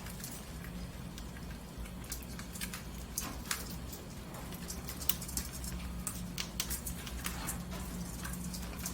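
Pet budgerigars making quick, irregular clicking chirps, with a steady low hum underneath.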